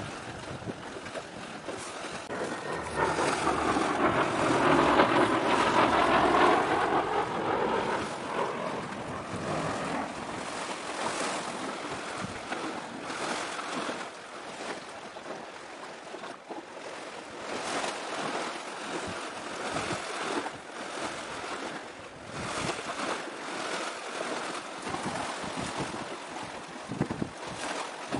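Wind buffeting the microphone over the steady wash of the sea. From about three to eight seconds in, a louder passing sound with a gliding pitch swells up and fades.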